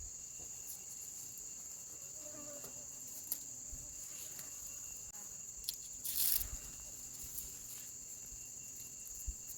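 Insects chirring in a steady, high-pitched drone, with a brief rustling noise about six seconds in.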